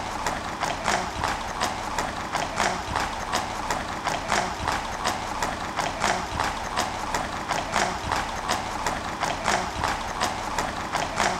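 Horse hooves clip-clopping on a hard road, an even run of sharp clicks about three a second.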